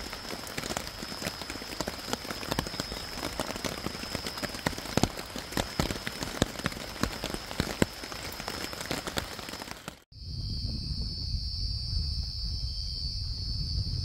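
Rain falling on a tent, a steady hiss with many sharp ticks of single drops hitting the fabric. About ten seconds in it cuts off suddenly to a steady high drone of night crickets over a low rumble.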